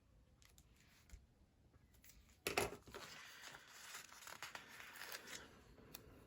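Paper crinkling as a sticker is peeled off its backing sheet: a few faint taps, then a sharp crackle about two and a half seconds in and about three seconds of rasping peel and rustle.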